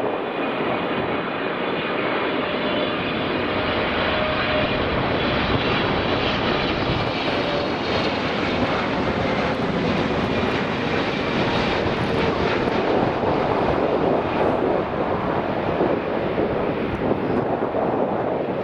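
Boeing 777-300ER's GE90-115B turbofan engines on final approach to land: continuous jet noise with a thin high fan whine in the first half, filling out slightly as the airliner comes closer.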